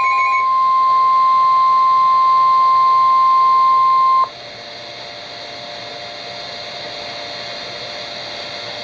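Emergency alert tone: one steady beep held for about four seconds, then cut off abruptly, typical of the NOAA Weather Radio 1050 Hz warning alarm. Short pulsed beeps sound over it at the very start. After the cut-off there is a quieter steady broadcast hiss with a faint hum.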